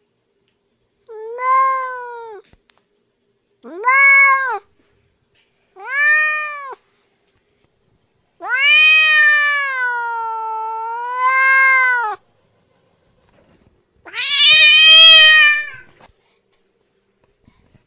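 Domestic cat meowing: four short meows, then a long drawn-out meow whose pitch sags in the middle and rises again, and a final loudest, harsher meow.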